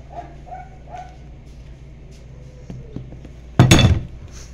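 A dog gives a quick run of yaps, about three a second, over the first second. About three and a half seconds in there is a loud, short clattering knock as a small phone tripod is set down hard on a table.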